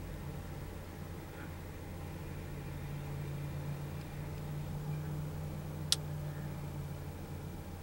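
White farm tractor's engine running steadily as it pulls a small square hay baler. A single sharp click comes about six seconds in.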